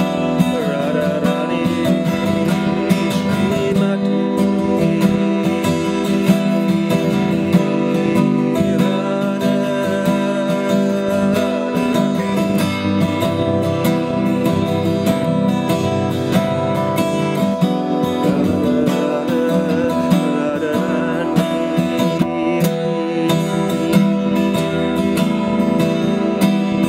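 Acoustic guitar strummed steadily, chords ringing on under a regular strumming rhythm.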